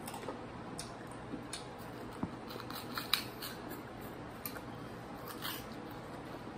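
Crunchy spicy snack chips being bitten and chewed, with scattered irregular crisp crunches and clicks over a steady low hum.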